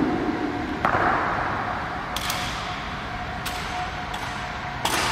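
Honor guards' ceremonial rifle drill: a handful of sharp, irregularly spaced snaps of rifle handling and boot strikes on the stone floor, each ringing briefly in the echoing hall.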